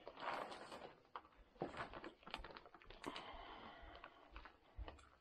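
Clear plastic sheeting crinkling and rustling, with small irregular clicks, as a liner-wrapped packer is handled and lifted.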